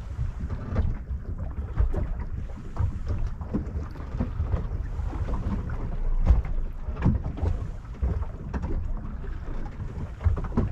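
Wind rumbling and buffeting on the microphone aboard a small boat at sea, with irregular knocks and thumps from water slapping the hull, the loudest a little past halfway.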